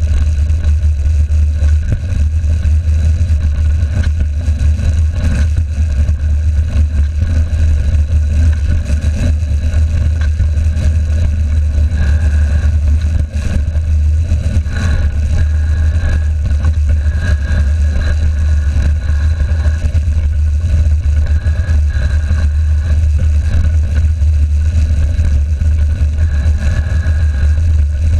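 A mountain bike rolling fast down a gravel forest track: a steady low rumble from the ride and wind on the bike-mounted camera, with the knobby tyres crunching and rattling over loose stones.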